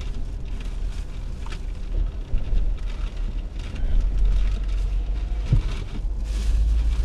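Steady low rumble of a car's engine and tyres heard inside the cabin while driving, with crinkling of a plastic bag and paper food wrapper being handled.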